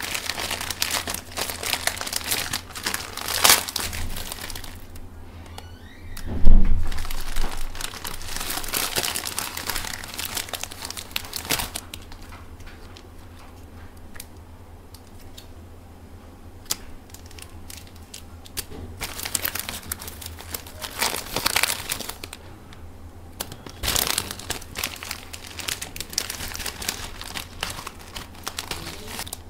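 Foil-lined plastic instant noodle packet being torn open and crinkled by hands, with its small plastic sauce sachets rustling as they are handled. Irregular bursts of crinkling come and go, quieter for a few seconds midway, with one loud dull thump about six seconds in.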